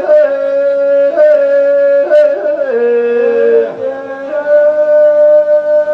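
Rajasthani Teja gayan folk singing: a voice holding long, steady, high notes, stepping to a new pitch every second or two.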